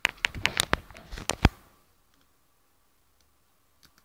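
A quick run of about ten sharp clicks and taps over the first second and a half, then quiet except for two faint ticks near the end, with a faint steady whine underneath.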